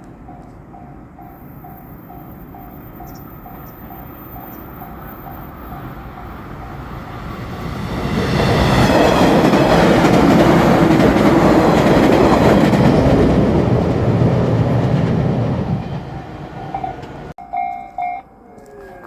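Japanese level-crossing bell ringing in steady repeated dings, about two a second. A 115-series electric train then comes up and passes close by, its wheels and running gear loud for about eight seconds before fading. The crossing bell is heard again briefly near the end.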